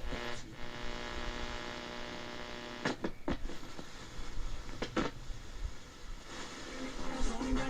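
1970 Realistic Chronomatic-260 clock radio's speaker giving a steady electrical buzzing hum, with a few sharp clicks about three and five seconds in. Near the end the hum gives way to music from a station.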